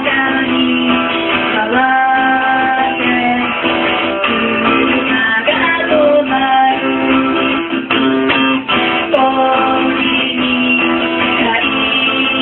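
A woman singing with long held notes to her own strummed acoustic guitar, performed live.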